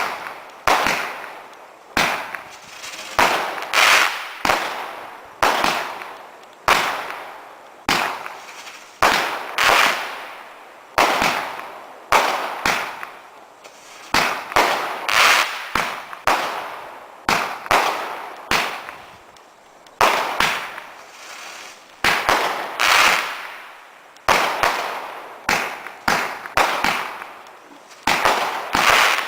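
Multi-shot firework barrage firing in quick succession: a sharp bang roughly every half second to second and a half, each trailing off in a fading hiss.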